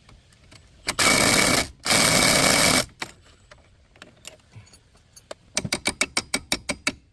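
Two short bursts of a power tool, each under a second, working on a seized brake bolt, followed near the end by a run of quick clicks at about five a second.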